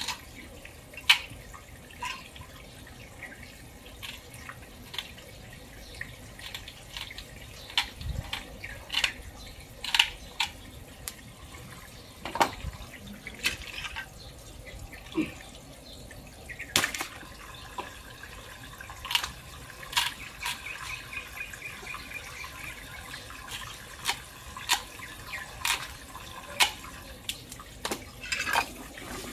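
Water trickling and splashing on wet concrete, with irregular short clicks and taps as a knife works through a large carp.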